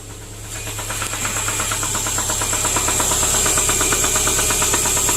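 2010 Subaru Impreza's 2.5-litre flat-four engine running with a fast, even knocking that grows louder over the first couple of seconds. The knocking is the noise of an engine that was run without oil.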